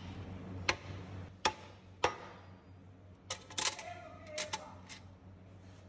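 Copper mallet tapping a bearing into the steel bore of a gear reducer housing: three sharp metallic taps about half a second to a second apart, then a quick run of clinks with a brief ring as the tapered roller bearing is set in place.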